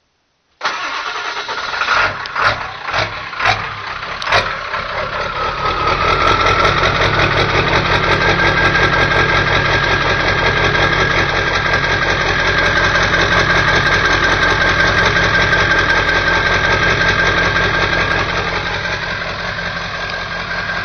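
1997 Ford F-250's 7.3L PowerStroke V8 turbo diesel, straight-piped with the muffler and catalytic converter removed, cold-starting: it cranks and catches with a few uneven firing pulses in the first seconds, then settles into a steady, loud idle with a steady high whistle over it, easing slightly near the end.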